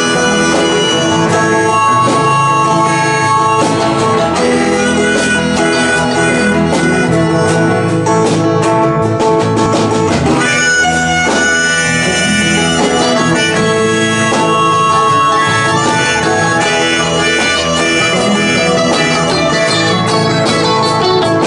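Live band playing an instrumental intro on strummed acoustic guitar, electric guitar and bass, with a steady country-style groove.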